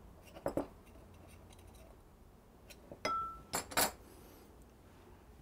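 A few faint clicks and clinks of a knife against a small ceramic bowl and the wooden counter as pastry dough is trimmed around the bowl's rim. One clink about three seconds in rings briefly.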